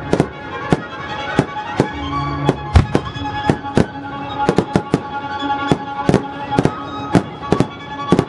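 Fireworks finale: aerial shells bursting in a rapid volley of sharp bangs, two to three a second, with music of sustained tones playing underneath.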